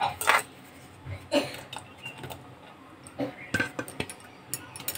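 A few scattered clinks and knocks of a metal spoon against cooking pots as fried okra is spooned into a pot of cooked dal.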